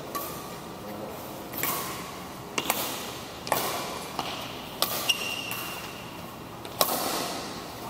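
Badminton rally: a series of sharp smacks of rackets striking the shuttlecock, several over a few seconds at an uneven pace, each ringing briefly in the hall.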